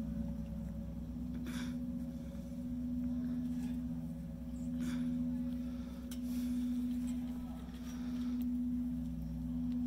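A steady low droning tone that swells and fades about every two seconds, with a few faint clicks over it.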